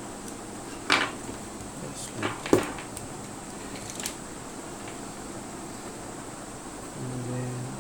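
A few light clicks and knocks of small RC car parts being handled and fitted during reassembly, the sharpest about two and a half seconds in, then a brief low hum near the end over a steady background hiss.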